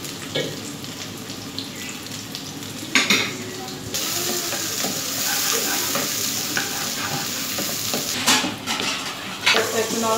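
Chopped onion sizzling in hot oil in a nonstick frying pan as a spatula stirs it, with a few knocks and scrapes of the spatula against the pan. The sizzle gets louder about four seconds in.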